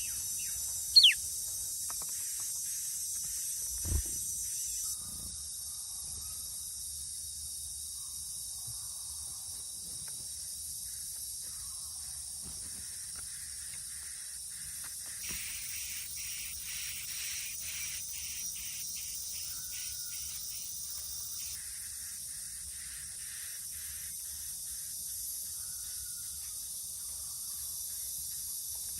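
Steady high outdoor hiss, with one sharp, loud, down-slurred bird call about a second in.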